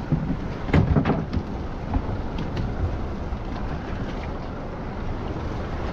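Wind rumbling on the microphone over the steady wash of the sea around a small fishing boat. A few louder knocks and gusts come about a second in, and another near two seconds.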